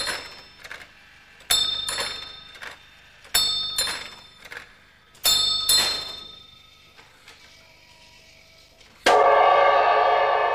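A small hand-held bell on a carved wooden clock automaton is struck three times about two seconds apart, each strike ringing out and fading. Near the end a hanging gong is struck once, louder and lower, and rings on with a slow decay.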